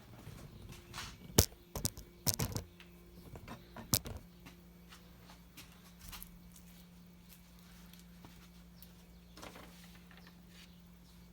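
Several sharp clicks and knocks from hard objects being handled, bunched in the first few seconds. A steady low hum then starts about four seconds in and keeps going.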